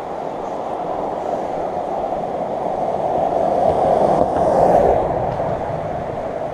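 A pickup truck passing close by on the bridge, its tyre and engine noise swelling to a peak about four to five seconds in and then fading. Underneath is the steady rush of the flooded river.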